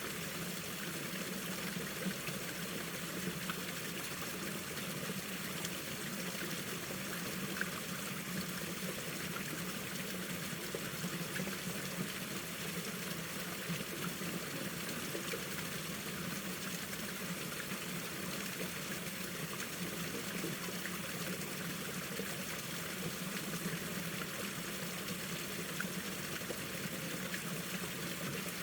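Mountain valley stream flowing steadily over rocks, an even, unbroken rush of running water.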